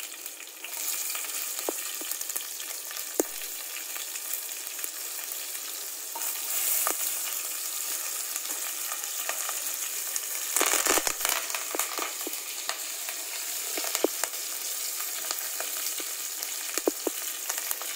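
Hot oil sizzling with mustard seeds, green chillies and curry leaves in it, a tadka (tempering) for potato saag, with scattered sharp pops as the seeds splutter. The sizzle flares louder twice, about six seconds in and again about eleven seconds in.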